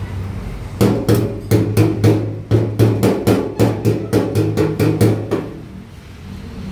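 Hammer tapping on a steel patch on a fuel tank, about four quick strikes a second, each with a short metallic ring; the tapping stops about five seconds in.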